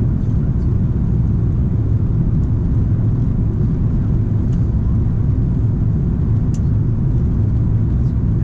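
Steady low rumble inside the cabin of a Lufthansa Airbus A340-300 in flight: the four CFM56 engines and airflow heard from a rear window seat, with no change in pitch or level.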